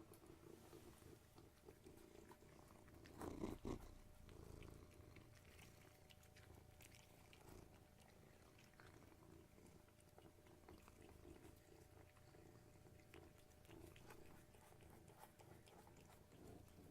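Domestic cats purring softly in a low, steady rumble, with a brief louder noise about three seconds in.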